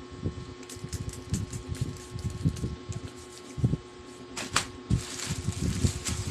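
A parcel being handled by hand: irregular taps and knocks, with a brief rustle or scrape about four and a half seconds in, over a faint steady hum.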